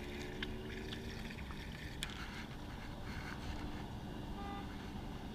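Steady low outdoor rumble, with a few faint ticks of line and rod handling and one sharper tick about two seconds in.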